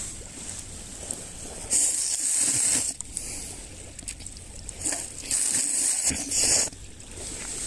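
Sea waves washing against the marina shore in two surges of hissing wash, about two seconds in and again about five seconds in.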